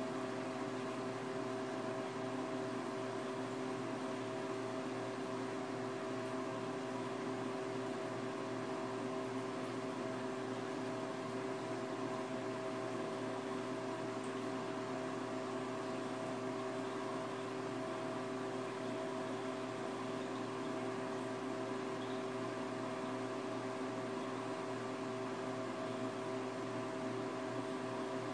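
Steady hum of a reef aquarium's water pumps and powerheads running, a few fixed tones over an even hiss.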